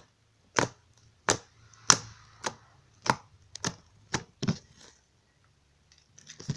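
Homemade glue-and-shaving-foam slime being pressed and squeezed in the hands, making sharp clicking pops about twice a second, around nine in all, stopping a little past halfway.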